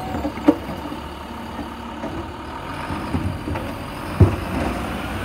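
Automated side-loader garbage truck's engine running while its hydraulic arm dumps a cart into the hopper and lowers it back down, with a sharp clunk about half a second in and a louder clunk about four seconds in.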